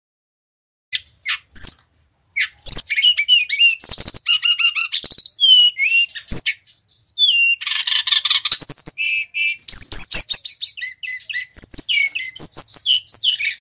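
Male Brown-chested Jungle Flycatcher singing. A few separate notes come first, then from about two seconds in a fast, unbroken song of varied whistles, slurred notes and trills, which cuts off suddenly at the end.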